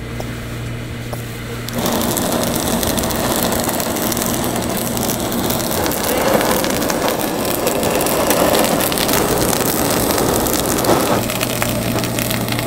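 Handheld butane blowtorches hissing steadily as they flame-sear a tray of sushi, starting about two seconds in and easing a little near the end.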